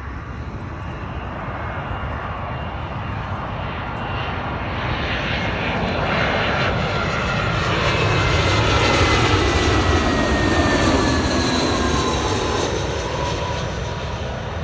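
Jet airliner on final approach, passing low overhead. The engine noise builds to a peak about two-thirds of the way through and then eases, with a whine that falls steadily in pitch as the aircraft goes by.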